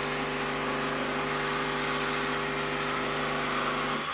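Steam wand of a Rocket Cellini Plus V3 espresso machine frothing milk in a stainless pitcher: a steady hiss with a constant hum under it, cutting off about four seconds in as the steam is shut.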